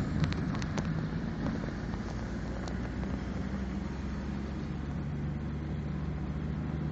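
Steady engine and road noise of vehicles driving at speed on a highway: a continuous low drone with a steady hum, with a few sharp clicks in the first second.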